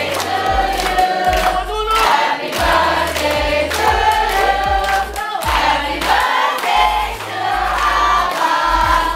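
Music with singing over a deep, steady bass line and a regular beat.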